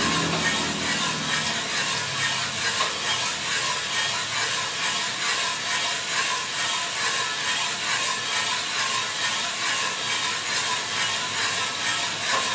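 Small drum coffee roaster running, with coffee beans tumbling in the rotating drum as a dense, steady rattle and hiss. This is early in the roast: the beans are still green, before first crack.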